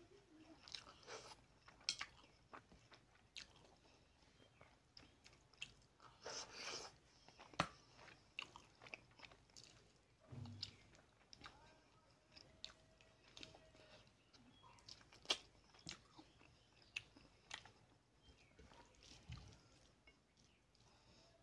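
Close-up eating sounds: a hand squishing rice and tilapia fish-head curry together on a steel plate, and a man chewing with wet mouth clicks and crunches. It comes as scattered short clicks and crackles with a few sharper snaps.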